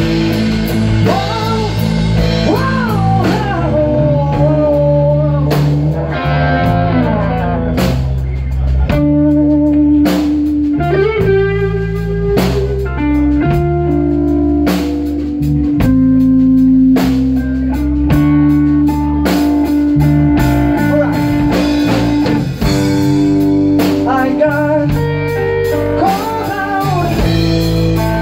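A blues band playing an instrumental break in a slow blues song: an electric guitar plays sustained, bending lead lines over bass and drums.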